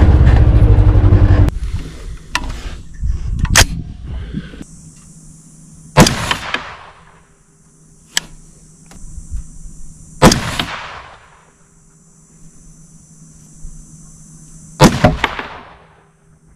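Three rifle shots from an AR-style rifle in 22 ARC, fired about four to five seconds apart as a three-shot group, each a sharp crack with a short echoing tail. Before them a loud rumbling noise stops about a second and a half in.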